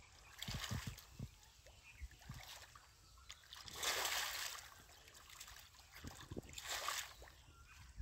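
Shallow muddy water splashing in three bursts, the longest and loudest about halfway through, as a large fish thrashes while being grabbed by hand.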